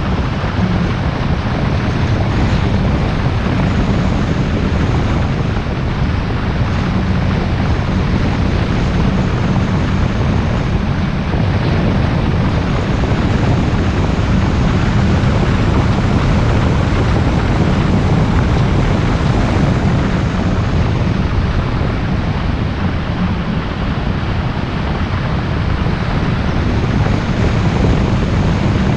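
Car driving at a steady speed: a steady rush of road and engine noise with wind buffeting the microphone.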